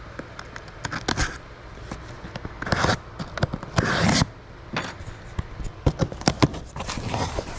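Cardboard package being slit open with a razor blade and unpacked by hand: a few scraping cuts and rustles, then a run of quick sharp clicks and knocks in the second half.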